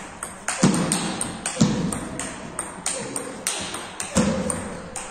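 Table tennis rally: the celluloid-type plastic ball clicking off the rubber-faced paddles and bouncing on the table, a sharp hit or bounce about every half second to second, with heavier knocks as the ball lands on the tabletop.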